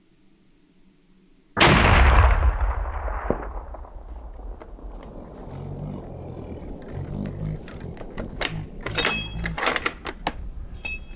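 A single hunting-rifle shot about one and a half seconds in, echoing and fading over a couple of seconds. The shot misses the mule deer: the bullet strikes a little high. Softer rustling and scattered clicks follow.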